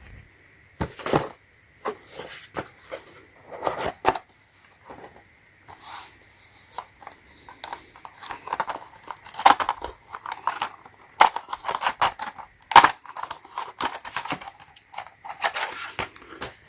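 Cardboard packaging being opened and handled: irregular tearing, scraping and rustling broken by sharp clicks.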